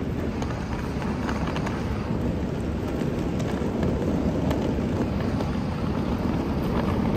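Steady rumbling, hissing background din of an airport terminal, with a few faint clicks.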